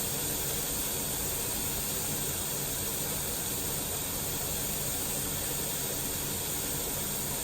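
Chicken-breast patties sizzling steadily in a little oil in a frying pan.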